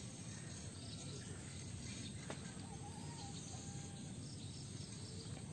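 Faint steady outdoor background hiss of a rural field, with a single click a little after two seconds and a brief faint whistle-like call about three seconds in.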